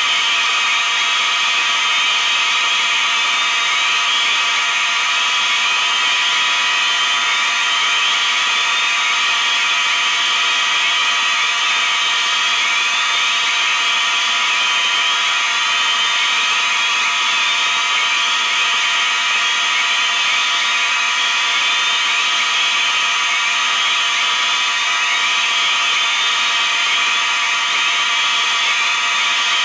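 Three dozen fire alarm appliances sounding all at once in one continuous, loud din. Mostly mechanical horns, with electronic sounders whose sweeping tones repeat over the steady blare.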